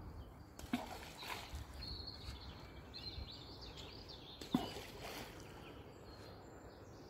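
Hand-thrown balls of groundbait landing in the canal water with a short plop, twice, about four seconds apart.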